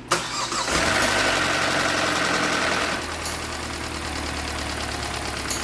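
Kia K5 2.0 gasoline four-cylinder engine being cranked and catching, then idling steadily. The engine has just been rebuilt: new metal bearings, a repaired crankshaft and a new oil pump after the bearings seized from lack of lubrication. The idle eases slightly about three seconds in.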